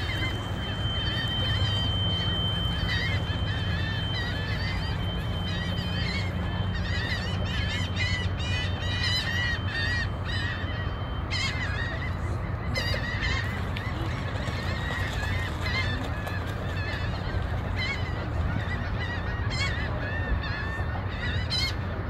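A flock of waterbirds calling: many short, overlapping, repeated calls, thickest in the middle stretch.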